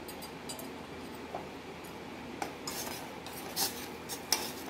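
Metal spoon stirring milky tea in a stainless steel saucepan, clinking and scraping against the pan a few times in the second half, over a low steady hiss.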